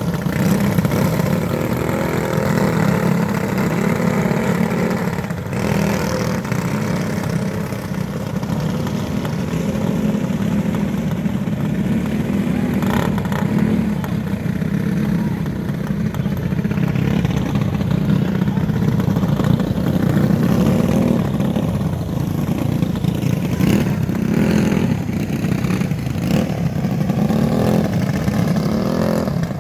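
Engines of small winged dirt-track racing cars running as they lap a dirt oval: a steady buzz that rises and falls with the throttle, with a few brief knocks.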